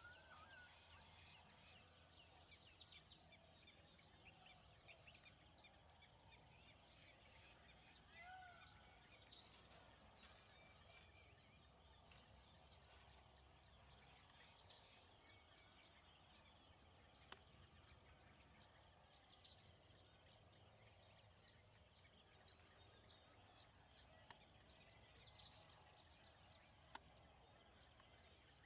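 Near silence: faint rural outdoor ambience, a steady high insect drone with a few brief faint bird chirps.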